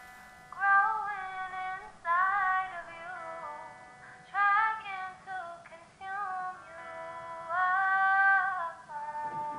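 Music: a woman's high singing voice in a series of short held phrases, one every second or two, each with a slight waver in pitch.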